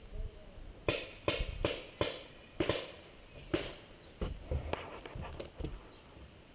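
Footsteps and knocks on a wooden treehouse deck: a string of irregular hollow thuds, roughly two a second, as a player shifts position on the boards.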